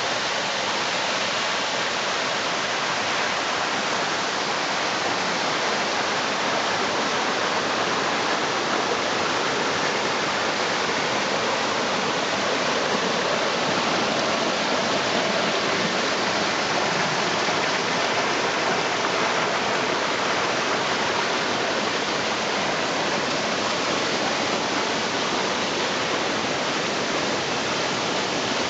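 Swollen mountain stream rushing loudly and steadily, its water high after typhoon rain.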